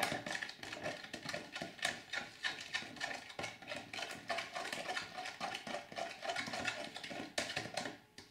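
A metal spoon stirring a foamy glue-and-shaving-cream slime mixture in a plastic tub: quick, irregular wet clicks and scrapes that break off just before the end.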